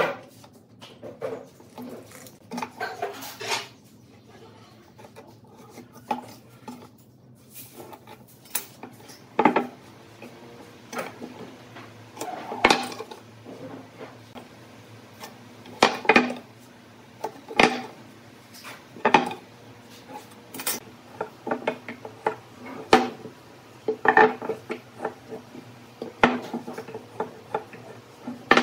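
A steel square, tape measure and other hand tools set down and knocked against pine boards and a wooden workbench while the boards are measured and marked. The sharp clacks and knocks come irregularly, a second or more apart, and grow more frequent in the second half.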